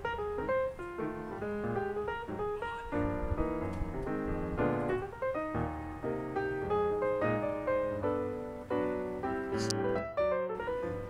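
Background piano music: a steady run of single notes and chords, each struck and fading.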